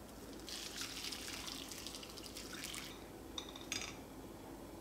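Dried-anchovy broth poured from a pot through a cotton straining cloth into a glass bowl: a splashing stream of liquid that stops about three seconds in. Two short, ringing clinks follow near the end.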